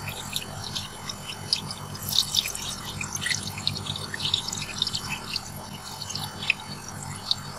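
Zucchini slices frying in hot cooking oil in a pan, sizzling and crackling with many small irregular pops.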